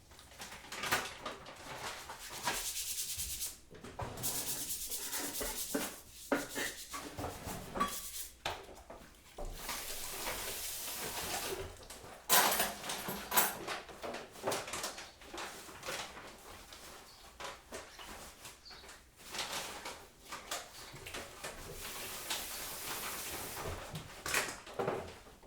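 Kitchen baking work: several stretches of scraping, each a second or two long, among scattered clicks and knocks of utensils and crockery.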